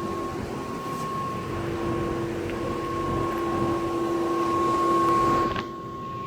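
Air conditioner condenser fan running with a steady hum: two steady tones, one low and one higher, over a rush of moving air. About five and a half seconds in the sound drops and the lower tone fades, leaving the higher hum.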